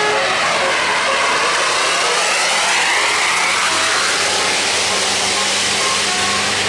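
Tour bus passing close, its engine running under a loud rushing hiss whose pitch slowly sweeps. Faint short notes of its multi-note telolet musical air horn come in near the end.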